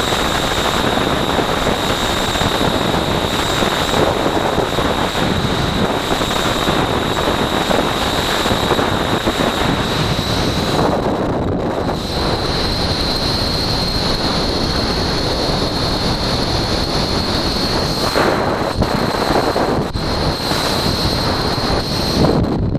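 Freefall wind rushing over a camera's microphone: loud, steady noise with a thin, steady high whine above it that drops out briefly about eleven seconds in.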